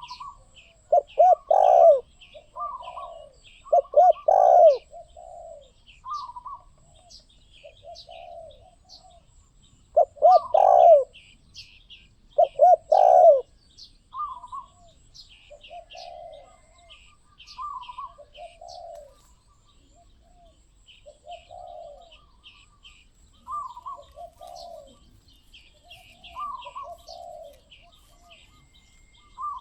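Spotted doves cooing in repeated phrases. The loudest come in clusters near the start and again around the middle, with softer coos between. Small birds chirp rapidly and continually higher up.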